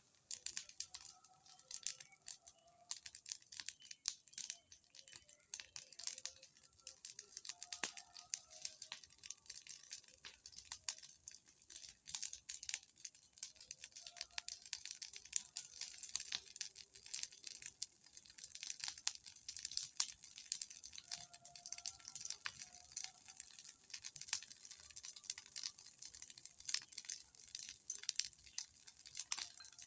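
Large bonfire crackling: a dense, irregular run of sharp snaps and pops.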